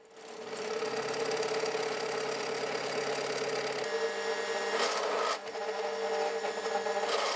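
Power drill running and cutting, drilling a hole back through weld built up on a broken bottle-clamping claw. The motor runs at a steady pitch and dips briefly about five seconds in.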